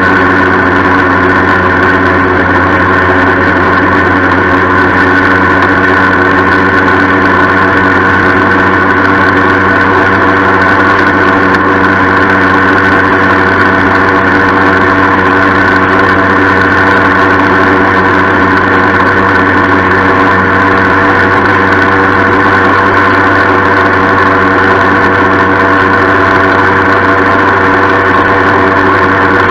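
Yamaha FS-1 moped's 49 cc two-stroke single-cylinder engine running steadily, its note holding one pitch, with a ringing metallic rattle over it.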